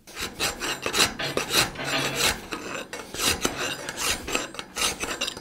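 Hand file scraping back and forth inside the eye of a forged 5160 steel pulaski axe head held in a vise, in repeated short strokes. It is cleaning the lumps and bumps out of the eye after forging.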